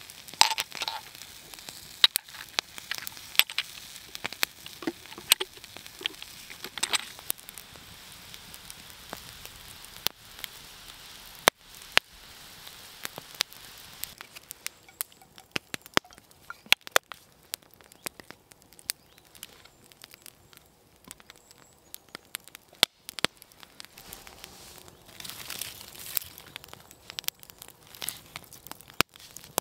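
Wood fire crackling, with irregular sharp pops and snaps over a faint hiss.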